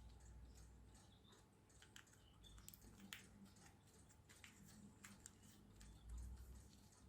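Faint, scattered small clicks and taps of small metal screws and parts being handled while fitting a motor.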